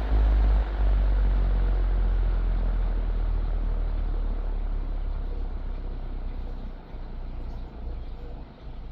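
Vintage 16-inch table fan spinning down after being switched off, its motor and blade whir fading steadily as it slows.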